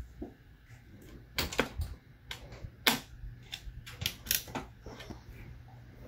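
Irregular sharp clicks and knocks as an RTX 3080 graphics card's metal bracket and edges bump against the PC case and its slot covers while it is worked into the PCIe slot. The loudest knocks come about one and a half and three seconds in. The card is not going in because the case's thumb screws were left in place.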